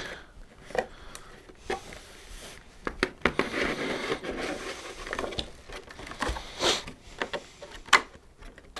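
Thin clear plastic packaging tray being handled and pulled out of a cardboard box: rustling plastic through the middle, with a few sharp clicks and snaps, the loudest near the end.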